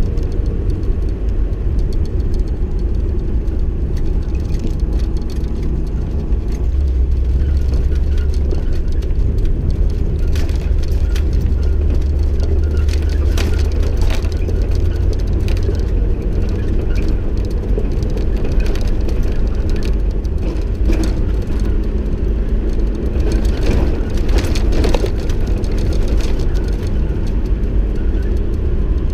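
Vehicle driving off-road on a rough dirt track: a steady low engine and tyre rumble, with scattered rattles and knocks from the bumps.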